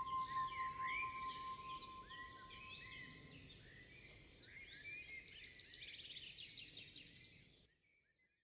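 Small birds chirping in quick, overlapping calls over a soft background hiss, with a single held tone dying away in the first few seconds. The sound fades and cuts off near the end.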